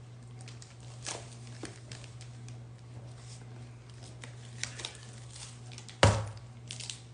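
Light crinkling, tapping and rustling of trading-card packaging and cards being handled, with one louder thump about six seconds in, over a steady low hum.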